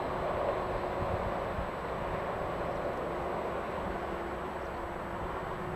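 Steady rumble of a passenger train moving away down the line, slowly fading, mixed with road traffic on the overpass.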